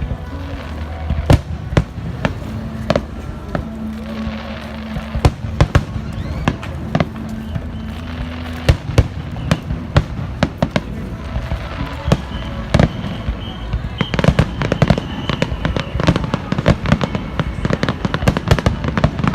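Fireworks display grand finale: aerial shells bursting in a rapid, overlapping run of sharp bangs, coming thicker in the last few seconds, with music playing underneath.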